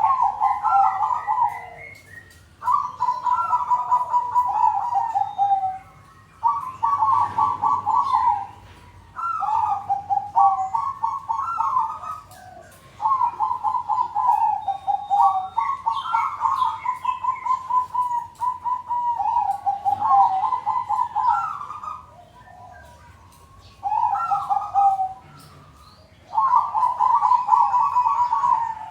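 Several zebra doves (perkutut) singing, each phrase a fast run of trilled coos, coming in bouts of a few seconds with short pauses between and at times overlapping.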